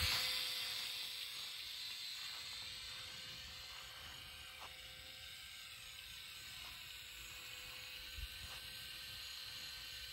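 Micro RC biplane's motor and propeller buzzing, fading over the first couple of seconds as it flies away after a close low pass, then a faint, steady high whine as it flies at a distance.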